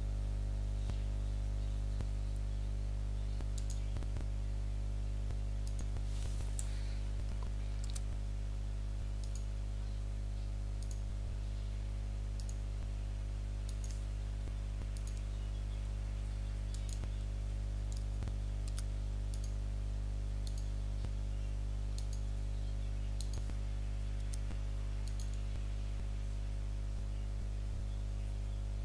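Computer mouse clicking at irregular intervals, a few times a second at most, as points are placed one by one along an outline. Under it runs a steady low electrical hum.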